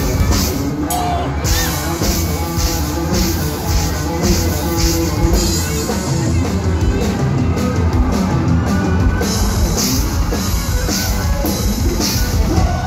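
Live rock band playing loud: electric guitar, bass guitar and drum kit, with a steady drum beat.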